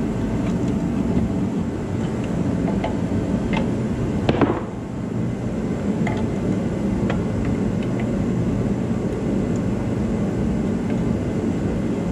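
A steady low mechanical hum with a few light metallic clinks of needle-nose pliers working at a small engine's fuel line and carburetor, the loudest clink about four seconds in.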